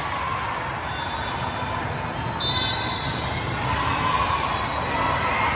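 Echoing din of a large sports hall with volleyball matches under way: crowd voices mixed with balls being hit and bouncing on the courts, and a few short high tones about halfway through.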